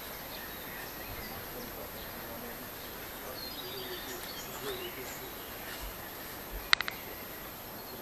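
Outdoor ambience: a steady background hiss with faint bird chirps and faint distant voices, and a quick cluster of three sharp clicks about two-thirds of the way through.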